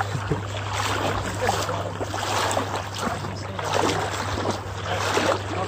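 Floodwater sloshing and splashing around the legs of people wading through it, over a steady low hum.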